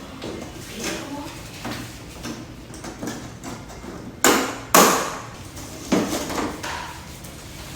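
Knocks and clatter from handling the parts of an LCD TV being taken apart. The clatter is light and scattered, with three loud sharp knocks in the middle.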